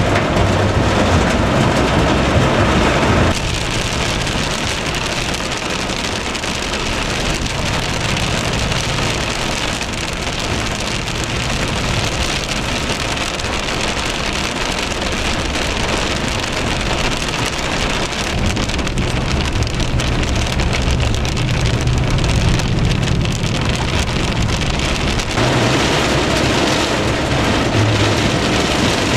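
Extremely heavy rain pouring down steadily on and around a truck, a dense even hiss, with a low hum of the vehicle underneath. The mix changes abruptly about three seconds in and again about four seconds before the end.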